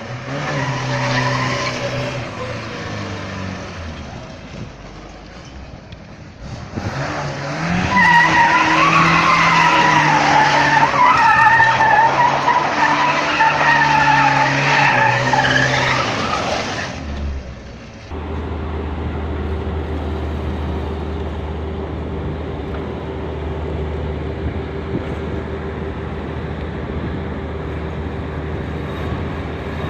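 A car's engine revving while its tyres squeal loudly in a drift, the squeal wavering up and down for about ten seconds. After a cut, a steady low engine drone follows.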